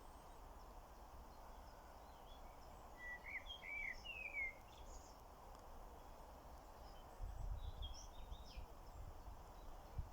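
Birds singing faintly over a steady outdoor background: a short run of chirping notes about three seconds in and another near eight seconds. A low rumble comes in during the second half.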